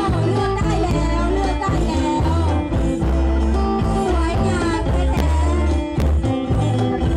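Live folk music from a khaen ensemble: bamboo mouth organs holding steady chords, with drums and a wavering melodic line over them, played through stage loudspeakers.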